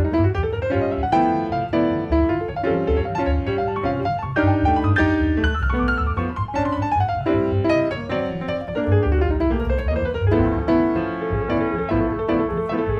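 Jazz played on acoustic piano and plucked upright double bass. The piano runs quick lines up and down, and the bass plays steady low notes underneath.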